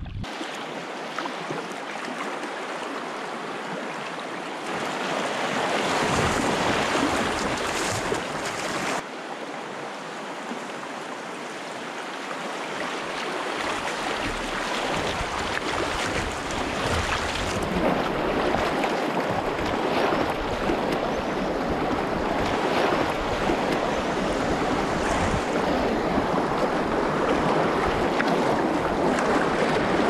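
Rushing white water of river rapids, with waves splashing around a sea kayak's bow and wind on the microphone. It grows louder in the second half.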